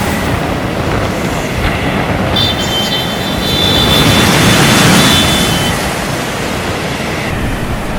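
Storm surf and wind: a heavy, steady wash of breaking waves that swells to a peak about five seconds in. A thin high whine sounds over it from about two and a half seconds in, for about three seconds.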